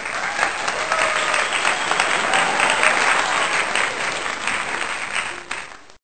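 Applause: many hands clapping in a dense, even patter that fades out near the end.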